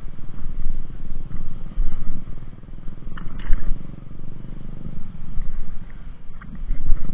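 Water sloshing around a person wading and dripping off a gill net being hauled in by hand, over a low rumble close to the microphone. A couple of sharper splashes about three seconds in.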